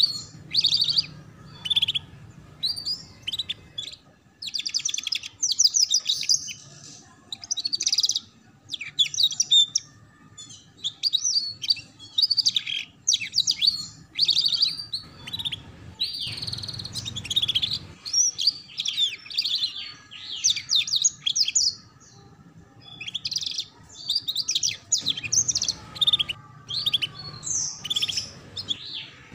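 Domestic canary singing in fast high trills and chirps, in phrases broken by short pauses: the rapid ngeriwik-style song used as a master recording for young canaries learning to sing.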